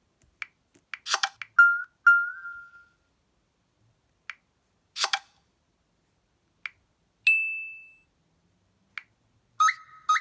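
An LG Spirit smartphone ringtone playing: a sparse electronic pattern of short clicks and brief pitched pings with gaps between them, one higher ping about seven seconds in ringing out for about half a second, and a two-note ping near the end.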